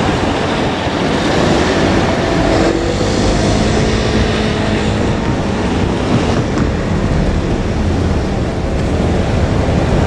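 A KiHa 47 diesel railcar running away over curved yard tracks, its engine and wheels heard under a loud, steady rushing noise. A few thin tones rise and fall a couple of seconds in.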